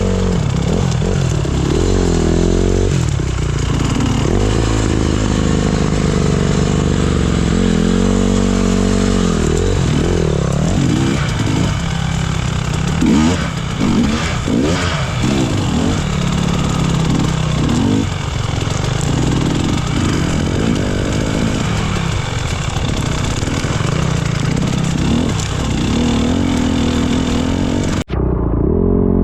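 Enduro motorcycle engine revving up and down again and again as the throttle is worked, with repeated rises and falls in pitch. The sound drops out briefly about a second before the end.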